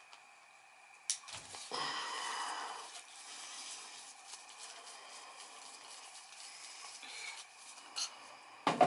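Handling noises from work on a furnace igniter: a sharp click about a second in, a short rustle, another click near the end and a louder knock just after it.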